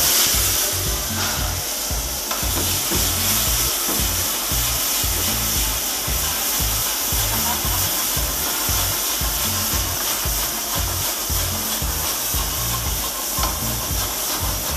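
Chopped vegetables dropped into a hot oiled wok hit with a sudden loud sizzle, then keep frying with a steady hiss as they are stirred and tossed in the pan.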